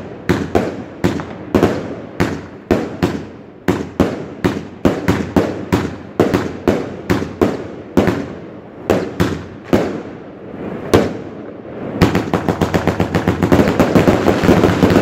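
Vuurwerktotaal Signature fireworks cake firing shot after shot, about two to three sharp bangs a second, as its shells burst overhead. The shots thin out and pause briefly about eleven seconds in, then a much faster volley of bangs takes over.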